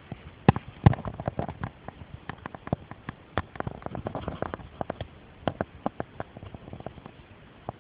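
Irregular sharp clicks and knocks, several a second at uneven spacing and varying loudness, with faint rustling between them.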